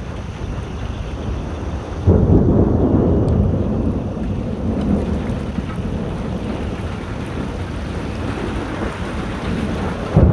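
Thunder: a sudden loud low rumble about two seconds in that rolls on and slowly fades over several seconds, with another clap starting near the end, over the steady hiss of heavy rain.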